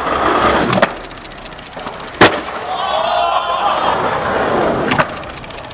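Skateboard on concrete: a single loud sharp crack of the board about two seconds in, with wheels rolling over the concrete before and after.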